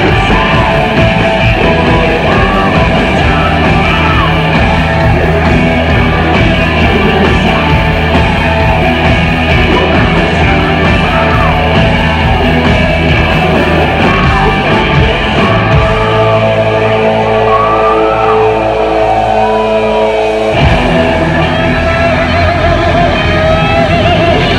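Live hard rock band playing loud distorted electric guitar and drums. About two-thirds of the way through, the band holds a ringing chord for about four seconds, then crashes back into full playing.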